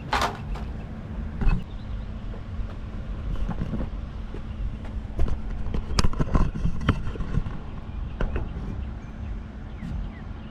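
Short plastic-and-metal clicks and knocks from a windshield wiper blade being fitted and pressed onto its wiper arm, over a steady low hum.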